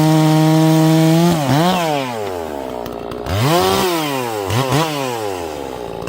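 Holzfforma G466 76.5cc two-stroke chainsaw running at full throttle, then its revs sag and climb back three or four times from about a second in, as it is pushed into the wood under load.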